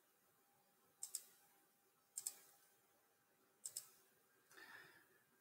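Computer mouse button clicking three times, each a quick double click, about a second or more apart, over faint room tone. A soft, brief rustle follows near the end.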